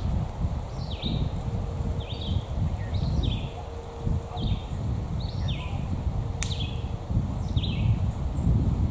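Bird chirping: short falling chirps repeated about once a second, over a steady low rumble, with one sharp click about six and a half seconds in.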